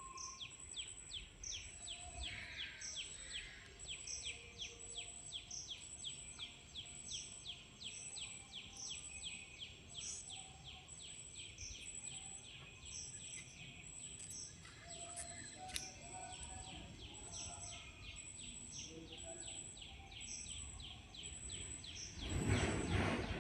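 Birds chirping steadily, short falling notes repeated about three times a second, over a steady high-pitched tone. A brief louder noise swells near the end.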